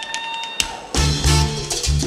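Live Cuban latin-jazz band playing a mambo: a short break with sharp tap-dance steps and one held high note, then about a second in the full band, with bass and congas, comes back in.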